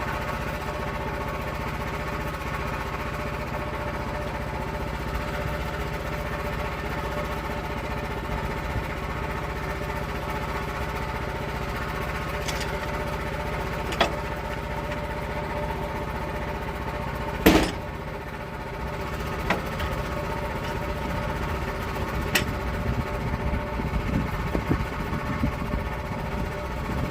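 Engine of a log-milling saw running steadily as an oak log is milled, with a few sharp knocks, the loudest about seventeen seconds in, and some crackling near the end.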